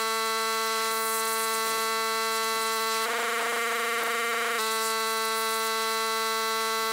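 Pressure washer running and spraying water: a steady buzzing drone at a constant pitch, which turns rougher and hissier for a second or two midway.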